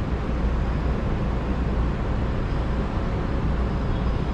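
Steady low rumble of a vehicle on the move: engine and road noise, even throughout.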